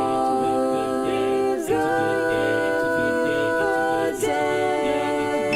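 Music: a cappella voices singing held chords in close harmony, moving to a new chord about every two and a half seconds.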